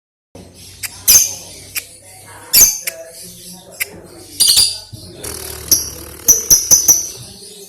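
Lovebird practising its 'konslet' chatter: shrill chirps and screeches, several single sharp calls, then a quick run of five or six calls about five and a half seconds in.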